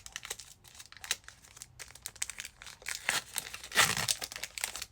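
Foil wrapper of a Pokémon trading-card booster pack crinkling and tearing as the pack is opened, with a louder burst of crackling near the end.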